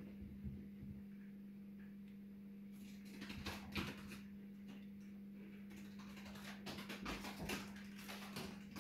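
Faint clicks and taps of a small wooden workpiece being handled, in two short clusters about three seconds in and near the end, over a steady low hum.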